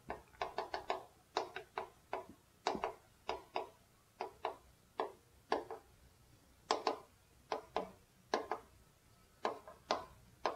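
Chalk writing on a chalkboard: quick taps and short scrapes as each stroke of the letters is made, coming in irregular clusters with brief pauses between words.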